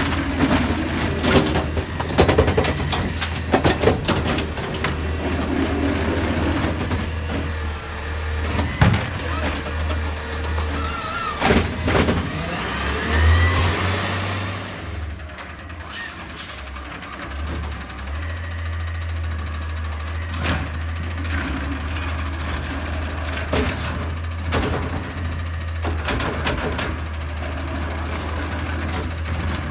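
McNeilus ZR automated side-loader garbage truck on an Autocar ACX chassis at work: its engine runs steadily while the arm lifts and dumps a cart with repeated clanks and knocks and a rising hydraulic whine. About halfway through the clatter stops and the engine runs on, with occasional clicks.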